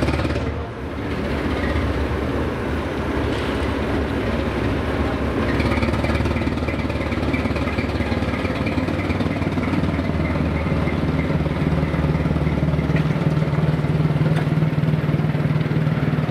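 Diesel locomotive engine running steadily. About thirteen seconds in, its note changes: the deep drone gives way to a slightly higher steady hum.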